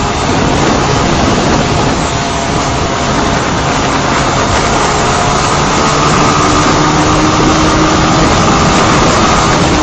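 Heavy wind rushing over the microphone of a Honda CBR125 ridden at road speed, with its single-cylinder engine running steadily underneath.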